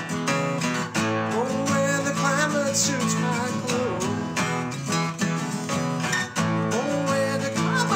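Acoustic guitar music: chords strummed in a steady rhythm, with a wavering melody line rising and falling over them about two seconds in and again near the end.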